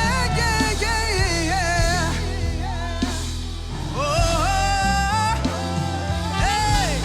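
Live gospel praise-and-worship music: a singer's voice gliding over a full band with bass and drums.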